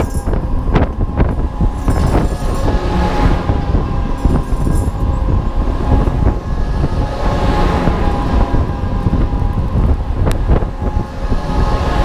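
A HUSS Enterprise ride heard from inside a gondola as the wheel spins at full speed: a loud, steady mechanical rumble with a steady whine, and wind noise on the microphone.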